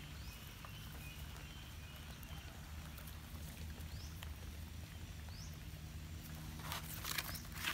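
Faint outdoor ambience with a steady low hum and a few short, high rising chirps, then near the end about a second of close rustling and scraping as fingers work loose soil and grass blades next to the phone.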